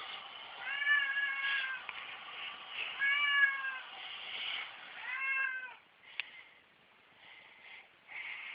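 Domestic cat meowing three times, each call about a second long, rising then falling in pitch, followed by a single sharp click.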